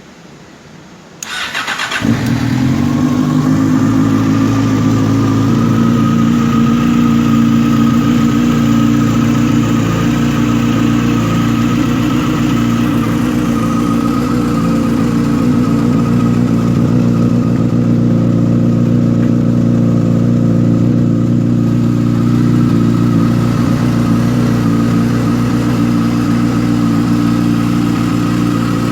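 Four-cylinder motorcycle engine starting about a second in, then settling into a steady idle.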